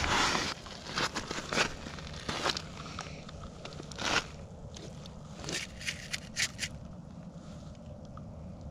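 Irregular crunching, scraping and sharp clicks of snow and ice being handled and stepped on, busiest in the first seven seconds and then thinning out.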